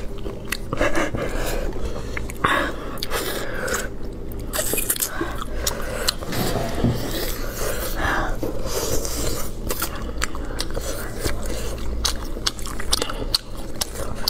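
Close-up eating sounds: gloved hands pulling apart spicy braised meat, then biting and chewing, with many short wet clicks and smacks.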